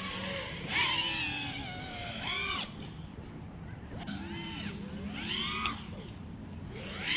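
FPV freestyle quadcopter's AxisFlying AF227 brushless motors whining, the pitch rising and falling in about four throttle surges as the quad rolls and punches.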